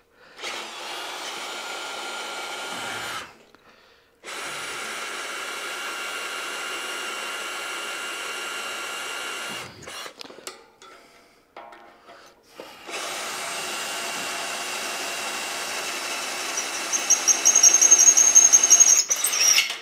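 Cordless drill with a 3/8 in bit drilling into steel through the holes of a clamped mounting plate, only deep enough to spot the hole centres. The drill runs steadily in three long bursts with short pauses between them, and a high-pitched squeal joins in near the end, the loudest part.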